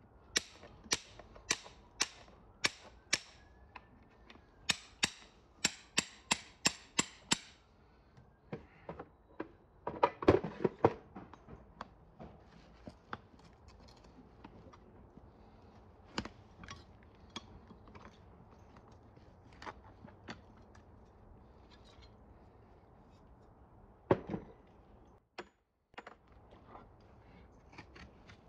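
Farrier working an old horseshoe off a hoof with metal hand tools. About a dozen sharp, ringing metal taps come roughly two a second in the first seven seconds. A cluster of heavier knocks follows about ten seconds in, then scattered clicks as the shoe is prised off with pullers.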